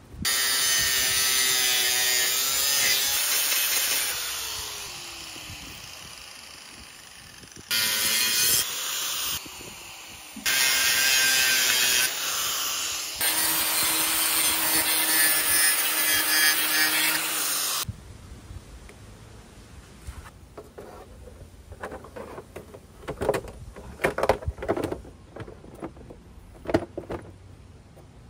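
Makita angle grinder with a thin cut-off disc cutting into a metal surf-rack bracket in several loud bursts, its pitch falling as it winds down between them. After about 18 seconds the grinding stops, and only quieter clicks and knocks of parts being handled remain.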